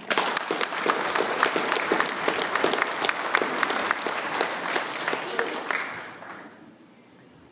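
Congregation applauding, starting abruptly and dying away after about six seconds.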